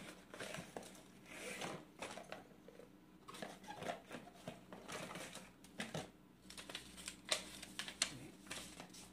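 Cardboard box and paper packaging being opened and emptied by hand: crinkling and rustling with many irregular light clicks and taps as items are pulled out and set down.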